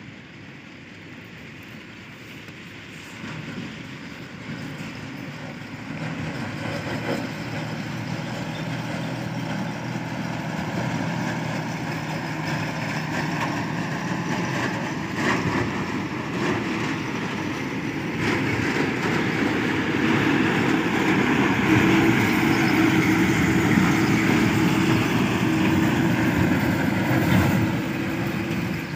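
Ten-wheeler dump truck's diesel engine running as the truck approaches and drives close past, growing steadily louder and loudest in the last third.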